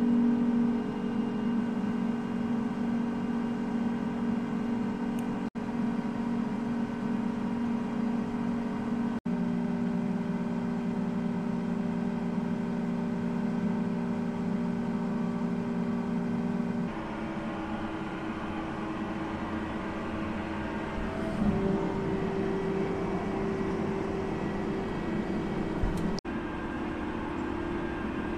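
Case IH tractor engine running steadily under load. Its hum shifts abruptly in pitch a few times.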